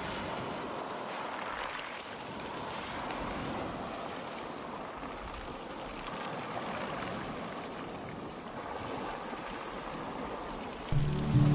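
Small waves breaking and washing up on a stony beach: a steady rush of water. Near the end, louder music with held notes comes in over it.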